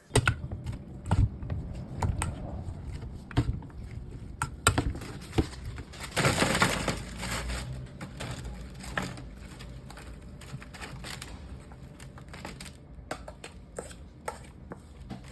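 Food being prepared by hand: irregular knocks and clicks, with a longer crunching, rustling stretch about six seconds in.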